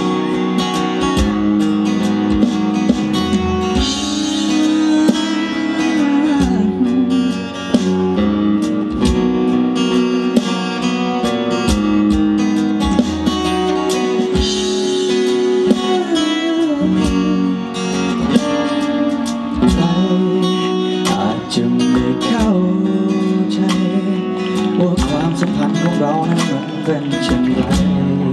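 Live ballad performance: acoustic guitar strumming with a man singing into a microphone.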